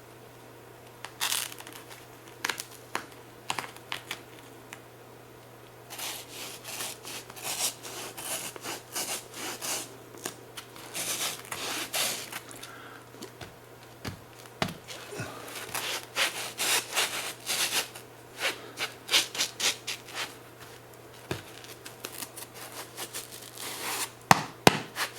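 Hands working parts of an emergency backboard repair: irregular rubbing and scratching strokes with sharp clicks, sparse at first and busier from about six seconds in.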